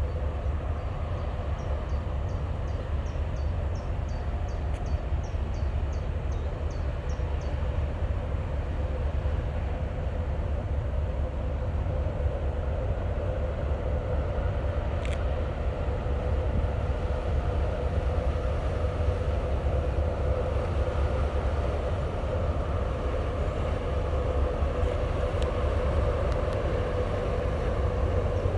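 A passing boat's engine running with a steady low rumble. A run of short, high chirps comes from about a second in to about eight seconds in.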